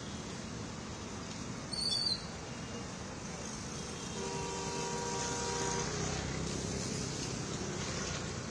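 Traffic on a flooded street, a steady wash of vehicle and water noise, with a vehicle horn held for about a second and a half around the middle. A brief high squeak comes about two seconds in.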